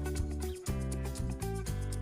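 Background music with steady bass notes and chords that change about every half second.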